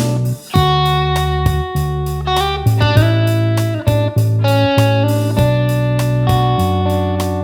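Music: a guitar-led song with a bass line and a steady drum beat.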